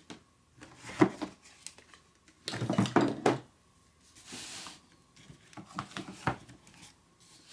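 Painting supplies handled on a tabletop: a few light knocks and clatters as a plastic palette box and a small ceramic dish are moved, with a brief rustle about halfway through.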